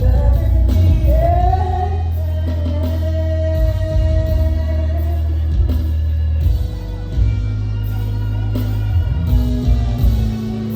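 Live R&B band music with a singer holding a long sung note over a heavy, steady bass. The vocal rises about a second in, is held for several seconds, and then drops out, leaving the band.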